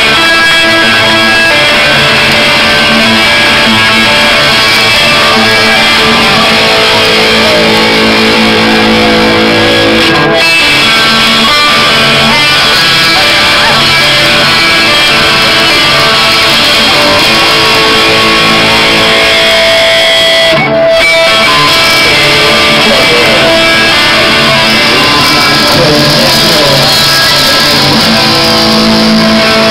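Rock band playing live, with electric guitars to the fore over bass guitar. The music is loud and steady, with a momentary break about ten seconds in and another about twenty seconds in.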